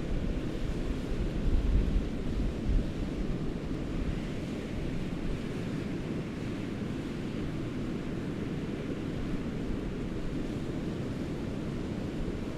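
Hurricane wind rushing, with heavy gusts buffeting the microphone in the first few seconds, then settling into a steady rushing noise.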